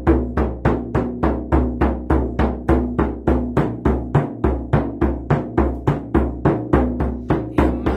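Hand-held frame drum struck with a padded beater in a steady, even beat of about three strokes a second, each stroke ringing deep and low.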